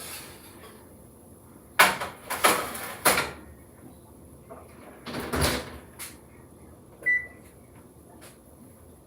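Kitchen clunks and knocks of an oven door and a baking dish being handled: three sharp clunks about two to three seconds in, a heavier thud a little after five seconds, then a click. About seven seconds in comes a short high electronic beep.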